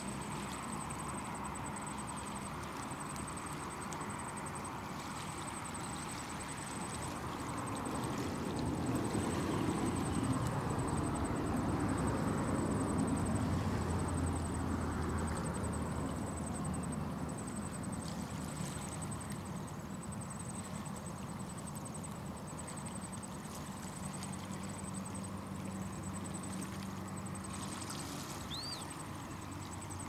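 Low, steady hum of a distant engine, growing louder for several seconds around the middle and then fading back.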